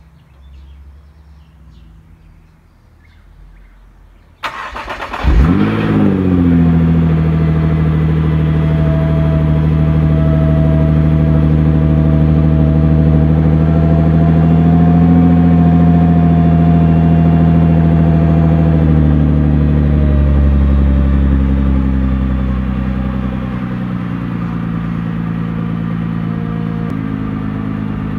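Nissan GT-R's 3.8-litre twin-turbo V6 cold-started about four seconds in, heard from the exhaust: a brief crank, a flare of revs as it catches, then a steady fast cold idle. The idle eases slightly lower and quieter near the end.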